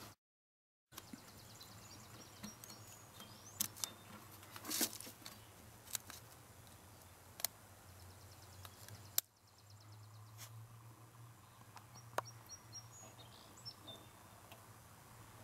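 Faint outdoor ambience with a steady low hum and a few faint bird chirps, broken by scattered sharp clicks and handling noises. A cluster of them comes about five seconds in. The sound drops out completely for about the first second.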